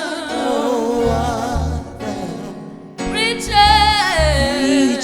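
Gospel song with a singing voice over bass and accompaniment; the music dips briefly and a sustained, wavering vocal line comes back about three seconds in.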